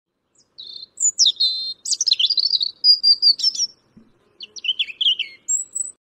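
Lovebirds chattering: a quick string of high chirps and squeaky calls, with a brief pause about four seconds in.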